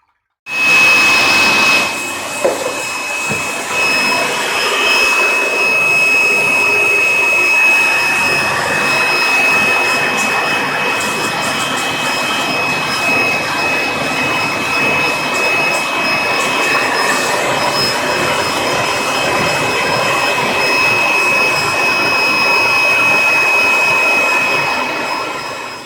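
A small electric appliance's fan motor running steadily with a high-pitched whine. It switches on suddenly about half a second in and runs down at the end.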